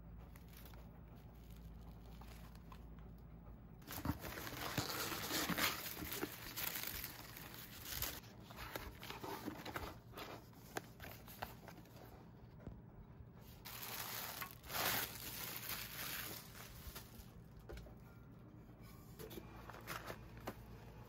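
Packaging being handled by hand as parcels are unpacked: plastic wrap, paper packets and cardboard crinkling and rustling in irregular bursts. It starts about four seconds in, is loudest over the next few seconds and again around fifteen seconds, then settles quieter near the end.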